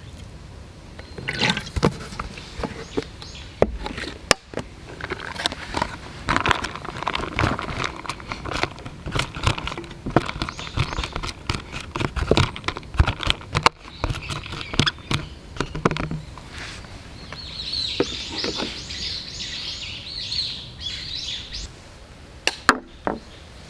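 Close-up food-prep sounds from a stainless steel Sierra cup: sauce poured over a block of tofu and chopped green onions sprinkled on, with many small clicks and taps. Near the end the cup is set down on a wooden table with two knocks.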